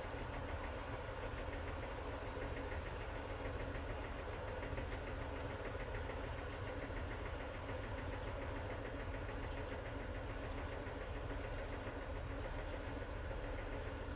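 Sharp ES-TX8E top-loading washer-dryer in its spin cycle: the drum spinning at speed with a steady, unchanging motor hum and low rumble.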